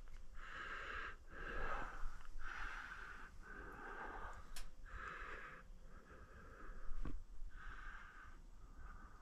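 A sick man breathing audibly close to the microphone, in and out about once a second. A brief knock comes about seven seconds in.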